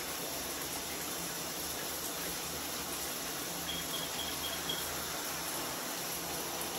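Shower water running, a steady hiss of spray.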